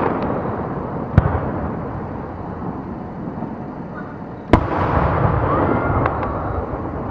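Aerial fireworks bursting: a sharp bang about a second in and a louder one about four and a half seconds in, with a continuous noisy rumble of further bursts between and after them.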